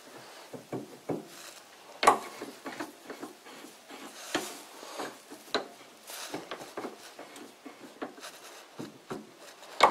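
Steel parts being test-fitted by hand: a lathe spindle's register pushed into a bored steel workpiece, giving scattered light metal clicks and rubbing, with a sharper knock about two seconds in.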